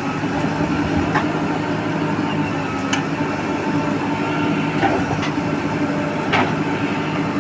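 A heavy vehicle engine running steadily at an even pitch, with a few sharp clicks.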